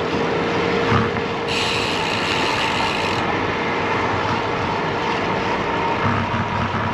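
Steady rush of wind on the microphone and tyre noise from a road bike being ridden along a busy road, with a single knock about a second in.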